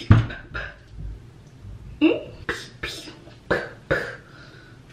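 Short, sharp breath exhalations and grunts from a person throwing shadowboxing punches, about seven in quick irregular succession, one with a voiced rise in pitch.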